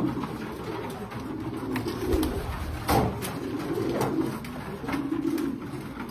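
Loft of racing pigeons cooing over and over, with scattered sharp taps and clicks and one louder knock about three seconds in.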